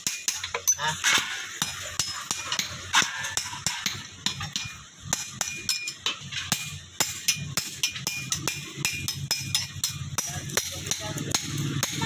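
Hand hammer striking a steel garden-trowel blade on an anvil block: a steady run of sharp metallic hammer blows, about three a second.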